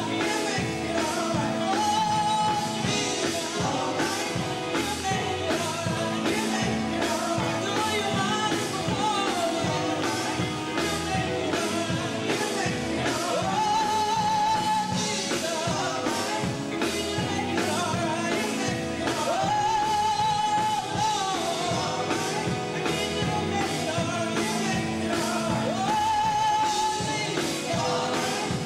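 Live gospel group of women singing with an electric guitar, bass guitar and drum kit playing a steady beat. A long high note is held about four times, spread through the passage.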